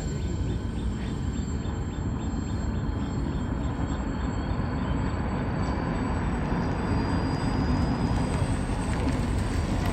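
Electric motors and propellers of a large foam RC B-24 Liberator model running steadily in flight.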